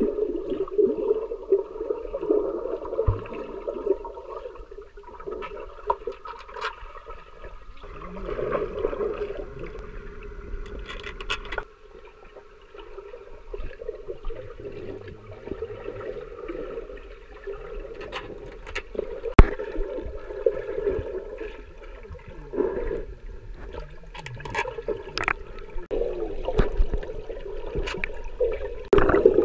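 Underwater sound of a Brittany spaniel diving and paddling in a swimming pool: muffled churning water and bubbles, with scattered sharp clicks.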